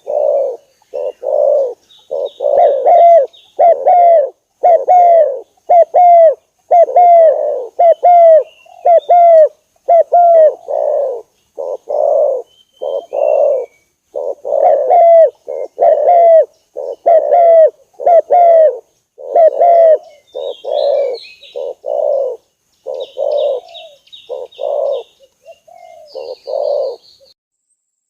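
Spotted dove cooing over and over, a long run of low, loud coos with a short break about halfway. Thin, high chirps from small birds sound above the coos.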